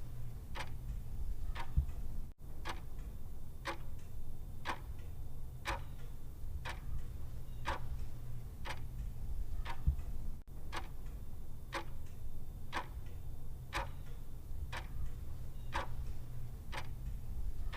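Clock ticking steadily, about two ticks a second, alternate ticks stronger, over a low steady hum. The sound drops out for an instant twice.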